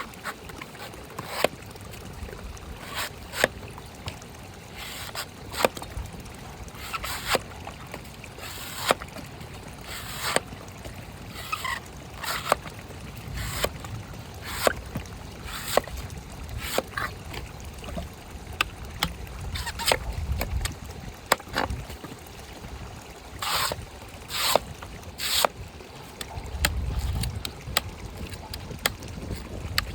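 Green coconut being chopped and cut with a blade: sharp chops about every one to two seconds, some followed by short scraping strokes.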